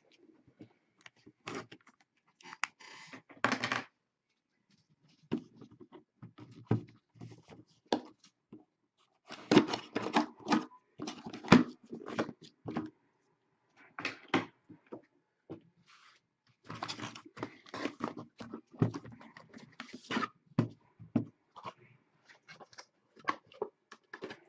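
Hands opening a sealed trading-card box: cardboard and plastic packaging rustling, scraping and tapping in irregular bursts, with occasional thunks.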